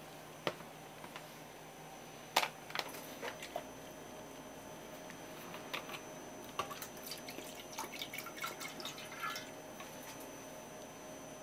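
A stainless steel tray set down on a wooden cutting board with a sharp knock about two seconds in. From about six seconds in, a soy sauce and sake marinade is poured into the tray, splashing and dripping against the metal for a few seconds.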